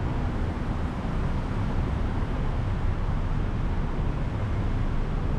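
Steady low rumble of road traffic passing on a city street.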